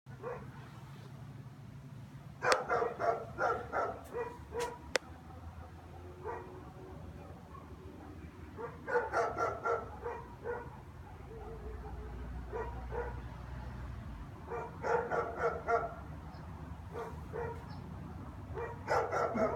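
German shepherd barking in runs of quick, loud barks every few seconds, with single barks in the gaps. The barking has no visible trigger: nobody is passing in the street.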